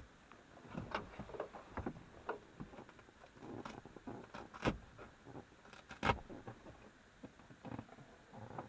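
Irregular clicks and knocks of hands working the zipper that holds the rear window into a Honda S2000 soft top, with two sharper knocks in the middle.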